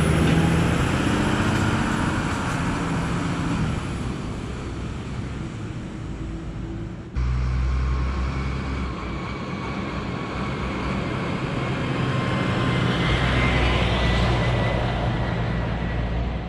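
Automated side-loader garbage truck's diesel engine pulling away from the curb, its sound slowly fading. About seven seconds in it cuts abruptly to a steadier low engine drone from a truck down the road, swelling a little near the end.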